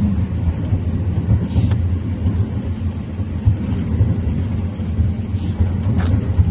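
Steady low rumble of a moving road vehicle heard from inside the cabin: engine and tyre noise while driving along.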